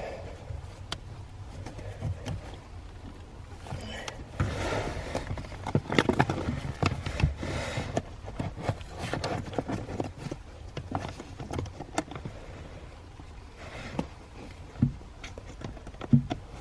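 Scattered clicks, knocks and scrapes of hands working a car's hood release cable and its plastic push clamp loose under the dashboard, busiest a few seconds in.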